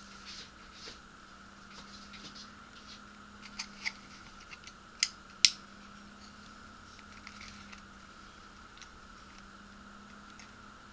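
Small clicks and scratches of a plastic model gondola frame and its wired bulb sockets being handled, with two sharp clicks about five seconds in, over a faint steady hum.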